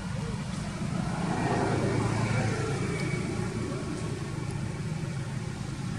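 A steady low engine hum, like a motor vehicle running.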